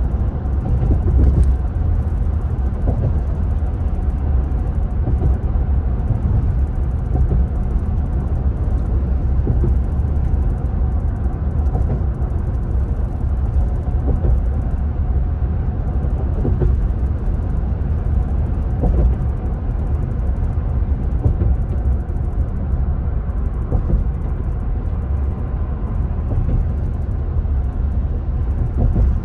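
Steady low rumble of tyre and engine noise from a car driving at highway speed, heard from inside the cabin.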